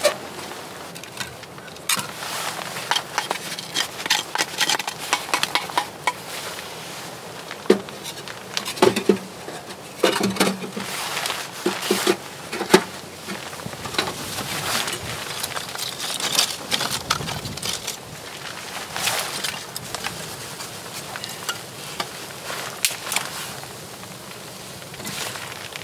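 Split kindling sticks clattering and knocking as they are loaded into a small metal wood stove's firebox. Many sharp clicks and crackles throughout, with a run of duller knocks midway.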